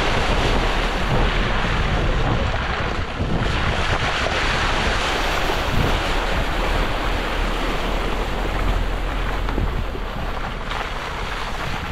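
Wind buffeting the microphone: a loud, steady rushing noise with a heavy low rumble.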